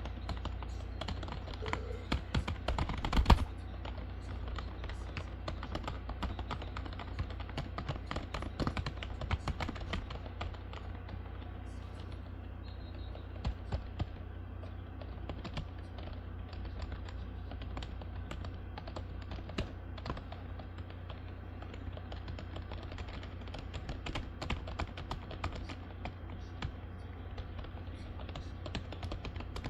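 Typing on a computer keyboard: a continuous run of key clicks at an uneven pace, with a few louder strikes about three seconds in, over a steady low hum.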